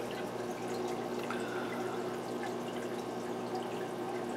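Aquarium filter running: a steady trickle and splash of water falling back into the tank, with a low steady hum underneath.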